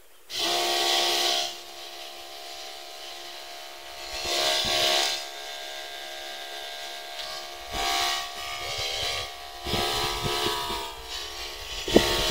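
Backpack sprayer's pump running with a steady whine. About five loud hissing bursts of spray sound over it.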